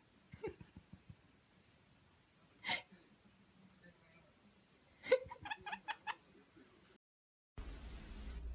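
White-bellied caique giving one short high call, then a quick run of about six high, laugh-like chirps about five seconds in.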